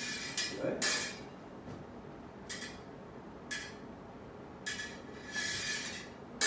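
Smallsword blades clinking and scraping against each other as the fencers engage and take the blade: a few short sharp clinks, then a longer scraping contact about five seconds in.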